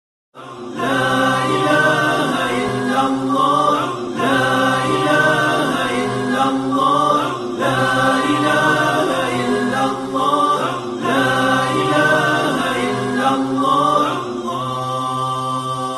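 A cappella choral chanting as intro music: several voices singing a melodic phrase that repeats about every three and a half seconds, quieter over the last couple of seconds.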